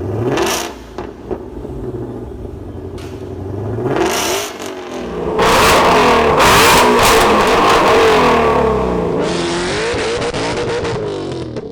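Shelby Mustang 5.2-litre V8 being revved in several rising and falling pulls, with short blips near the start and the longest, loudest rev in the middle.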